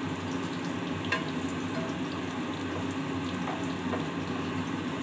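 Batter-coated bok phool (Sesbania flower) fritters sizzling steadily in hot refined oil in a kadai over a medium gas flame, with a light click about a second in.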